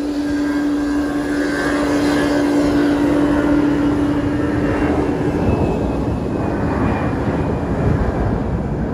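Jet engines of a Boeing 777-200ER airliner running at low power on the ground: a steady hum with a faint high whine that drifts slowly lower. A low rumble grows from about five seconds in as the hum fades.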